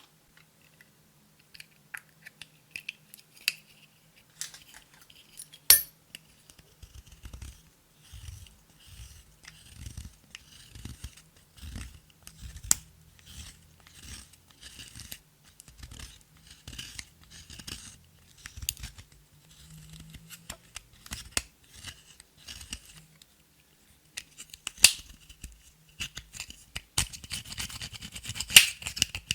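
Slime being worked by hand, with crisp sticky clicks and crackles over soft, rhythmic squelches. The crackling gets denser near the end.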